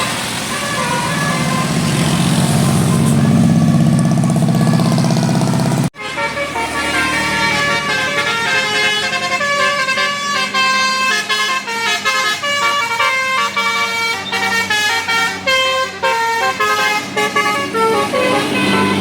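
A bus passes with a loud rush of engine and road noise that swells and falls. After a sudden cut about six seconds in, a multi-tone Basuri 'telolet' bus horn plays a fast melody of many short notes.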